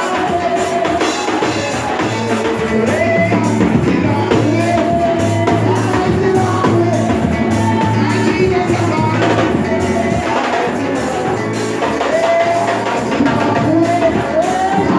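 Live gospel music: voices singing over a band with a drum kit and bass keeping a steady beat.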